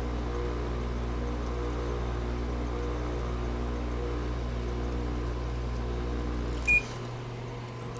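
GE 5,050 BTU window air conditioner running on a cold start at −4 degrees, a steady low hum with several steady tones. Near the end a short electronic beep sounds and the low hum stops as the unit is switched off.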